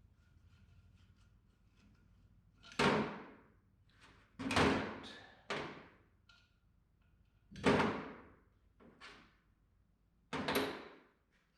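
Four heavy thunks a few seconds apart, each dying away quickly, with two lighter knocks between them, from parts of a tractor's hydraulic touch control unit being knocked and handled during its teardown.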